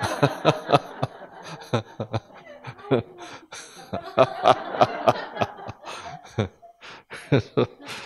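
A small group laughing in short, irregular bursts, with the man at the microphone chuckling along.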